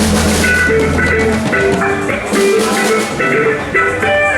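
Band instruments playing loosely during a sound check: a run of short, repeated melodic notes over cymbal hits, with a held bass note that stops about a second and a half in.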